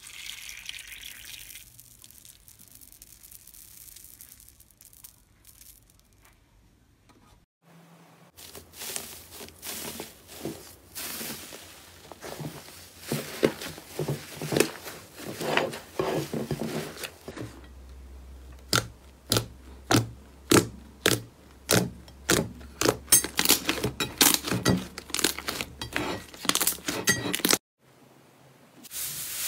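Liquid poured into a cup of foam beads with a short hiss. Then hands stretching and pulling fluffy slime, with sticky crackling and tearing sounds that build up. After that comes a run of sharp pops about two a second as the slime is worked, which stops abruptly near the end.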